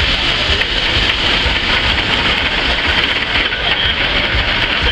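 1916 Erie Type B steam shovel working under steam: a steady hiss of steam over a low, uneven chuffing from its engines as the boom swings.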